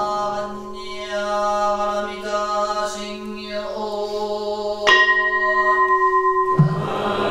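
Zen Buddhist chanting: voices holding long, steady tones, with a bell struck once about five seconds in and left ringing. Near the end the chant picks up again in a steady rhythm.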